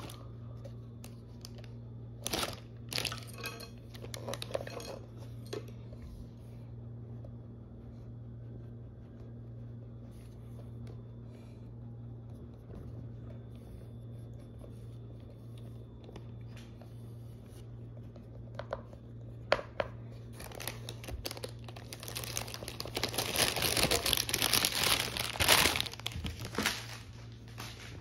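Handling noises from sculpting polymer clay at a work table: scattered taps and scrapes of tools and hands, then a few seconds of dense crinkly rustling near the end, over a steady low hum.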